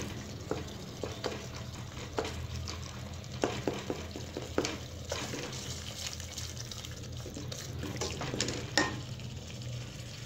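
A wooden spoon stirs a thick, well-roasted tomato, chilli and spice masala in an aluminium pot, with scattered knocks and scrapes of the spoon against the pot. Under it the paste sizzles softly as it fries in oil, over a steady low hum.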